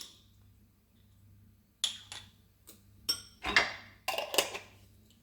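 A spoon clicking and scraping against a jar and bowl while whole grain mustard is spooned out, about seven sharp clinks after a couple of quiet seconds.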